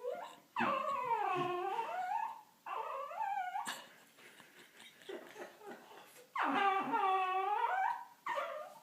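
A small dog vocalizing in long, wavering whines that swoop up and down in pitch. Two come close together, then a pause of a few seconds, then another long one and a short one near the end.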